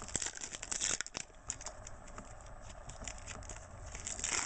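Trading card pack wrapper being torn open and crinkled, a crackling rustle with small clicks that is loudest in the first second and again near the end.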